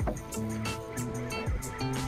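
Background electronic music with a steady beat: kick drum, hi-hats and sustained bass and synth notes.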